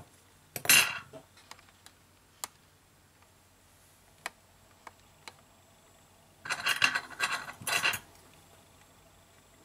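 Close handling noise of fingers pressing a power button and its small flex board onto a smartphone's frame: a few faint separate ticks, with a louder rustling scrape about a second in and another cluster of rubbing noise near the end.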